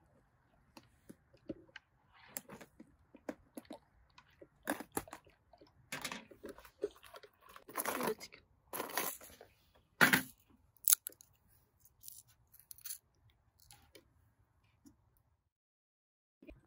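Close-up eating: irregular crunching and chewing with small sharp clicks, loudest about halfway through and thinning out toward the end.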